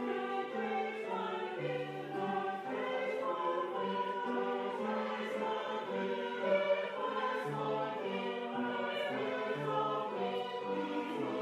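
A choir singing in harmony, with slow, held chords moving from one to the next.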